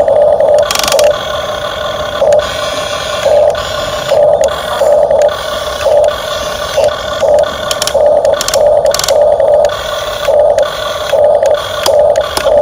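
Electric gear motors of a Huina RC excavator whining as the arm and bucket are worked: a steady whir with louder whining bursts about once a second as the motors start and stop.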